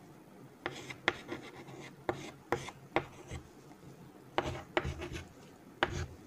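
Chalk writing on a chalkboard: a dozen or so short, irregular scratching strokes and taps, starting under a second in, as lines and letters are drawn.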